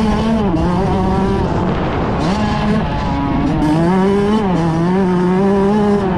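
Kawasaki KX dirt bike's engine heard from on board, running hard along a motocross track. Its pitch drops briefly twice, about two and three seconds in, as the throttle is rolled off and on, then climbs and holds as the bike rides up a jump face.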